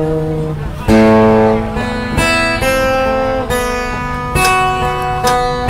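Acoustic guitar strummed slowly, chords changing about once a second.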